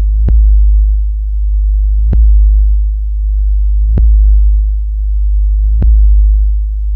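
Deep sub-bass tone of an EDM competition sound-check track, swelling and dipping, with a sharp click-like hit about every two seconds, four in all. This is a bass test section meant to show off a sound system's low-end vibration and punch.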